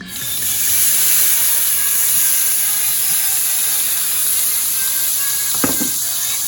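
White wine hitting a hot frying pan to deglaze it, setting off a sudden, loud, steady hiss and sizzle. A short knock, like a utensil against the pan, comes near the end.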